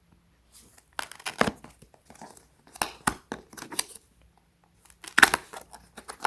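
Packaging being torn open and crinkled by hand, in irregular bursts of ripping and crackling, loudest about five seconds in.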